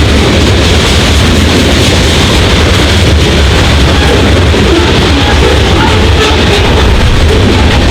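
Freight train passing close by with a loud, steady, heavy rumble, distorted on the microphone.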